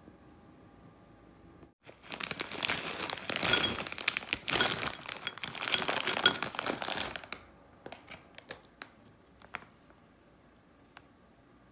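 A plastic snack bag crinkling and being torn open, loud and continuous for about five seconds starting some two seconds in. It is followed by a few scattered light clicks.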